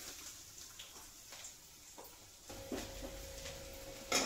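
Scattered light clicks of a metal spatula against a wok while garlic and green chillies fry, with one louder knock near the end. A faint steady hum sets in about halfway through.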